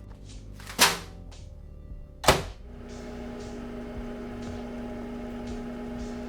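Two sharp thuds about a second apart, then a microwave oven starts running with a steady hum.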